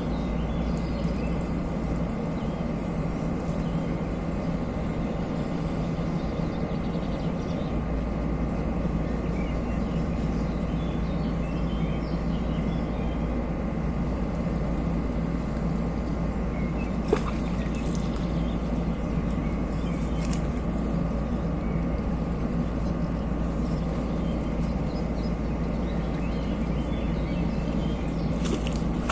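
Steady outdoor ambience: a constant rushing noise with a low, steady machine-like hum under it and faint bird chirps. A single sharp click about 17 seconds in.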